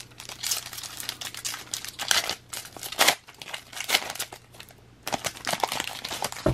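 Foil wrapper of a Topps Star Wars trading-card pack being torn open and crinkled by hand: a dense run of crackling, with a short lull about four and a half seconds in.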